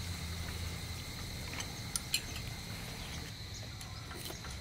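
A few light clicks and clinks of chopsticks and a metal spoon against a small ceramic dipping bowl, over a steady low hum and a thin high steady tone.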